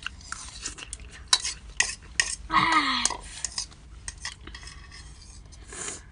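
Cutlery clinking and scraping against a bowl of instant noodles during eating, as many light, irregular clicks. About two and a half seconds in, a brief voice sound falling in pitch.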